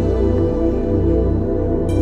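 Background music: calm new-age ambient music with sustained chords and a low bass.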